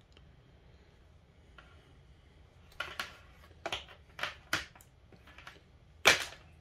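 Diagonal cutters and a length of red 12-gauge wire being handled on a wooden tabletop: a string of short clicks and knocks after a quiet start, the loudest about six seconds in.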